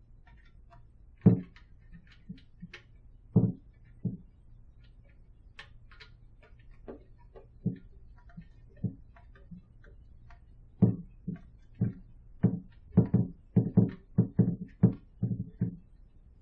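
Irregular light knocks and clicks as a threaded foot is hand-screwed into the bottom of a Kudo3D Titan 1 printer's metal case and the case is handled on a wooden table. Sparse at first, then coming thick and fast over the last few seconds.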